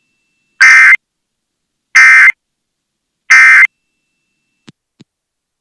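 Emergency Alert System end-of-message (EOM) signal: three short, identical bursts of buzzy SAME digital data tones, about 1.3 seconds apart, marking the end of the test alert. Two faint clicks follow near the end.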